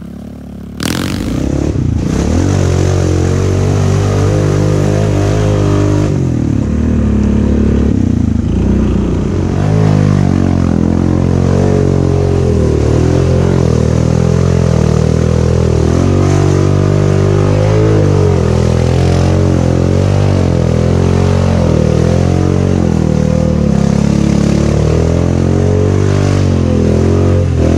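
Honda Rubicon ATV's single-cylinder engine breathing through an RJWC Mud Edition aftermarket exhaust, running under throttle while riding, the revs rising and falling over and over.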